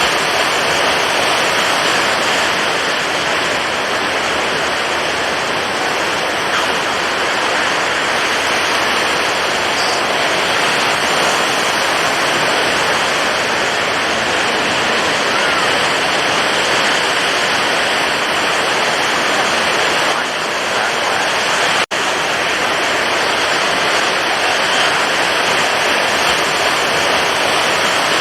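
Stormy ocean waves, a steady, dense rush of surf with little rise and fall, broken once by a split-second gap about three quarters of the way through.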